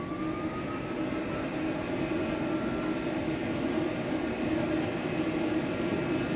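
Pet grooming dryer blowing a dog's coat dry: a steady airflow drone with a motor whine that rises over about the first second as it spins up, then holds steady.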